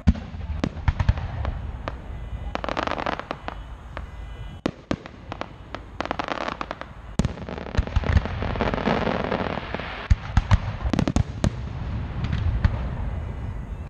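Fireworks display: aerial shells bursting in many sharp bangs, coming thickest a little past two thirds of the way in.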